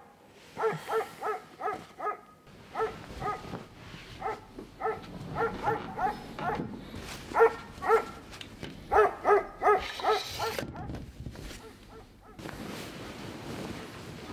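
A small dog yapping in quick runs of short, high-pitched barks, several a second, with brief pauses between runs. The barking stops a couple of seconds before the end, where a steady hiss takes over.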